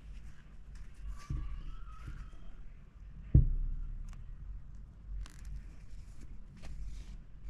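Handling noise from hand-sewing a fabric lining with needle and thread: faint short clicks and rustles over a low steady background rumble, with one sharp knock about halfway through that is the loudest sound.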